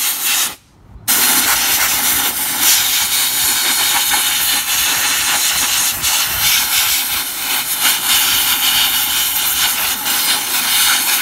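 Compressed air from an air compressor's blow gun hissing loudly and steadily into a Nissan Cube's rear hatch latch, with a short break about half a second in. The air is blowing the soaked-in solvent, grease and dirt out of the stuck latch.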